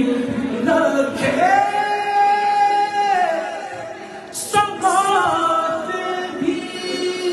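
A man singing an Urdu devotional kalam into a microphone, drawing out long, ornamented held notes. He takes a short dip about four seconds in, then starts a new phrase.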